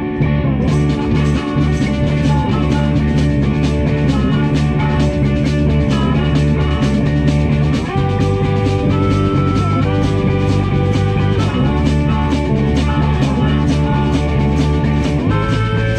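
Live blues-rock band playing: electric guitars with sustained, bending notes over bass and a drum kit keeping a steady cymbal beat.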